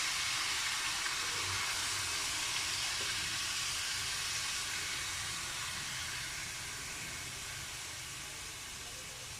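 Frying pan sizzling with a steady hiss that slowly dies down, the coconut milk just poured over the sautéed unripe papaya cooling the hot oil.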